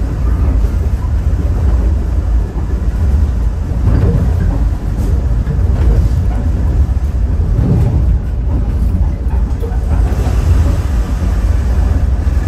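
Caltrain passenger train under way, heard from aboard: a steady low rumble of wheels running on the rails.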